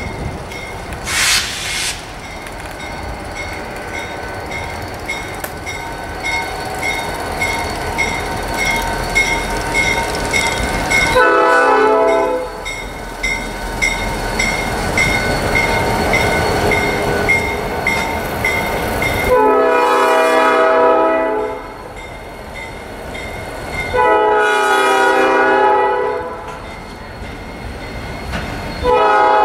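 A Susquehanna (NYSW) diesel freight locomotive passing close, its engine running and wheels rolling over the rails, with a bell ringing steadily until about two-thirds of the way through. Its multi-chime air horn sounds four times: a short blast, two long blasts, then a short blast starting near the end.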